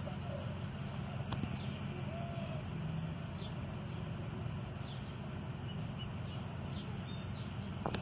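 Outdoor background of a steady low rumble, with small birds chirping now and then and a single short low coo about two seconds in.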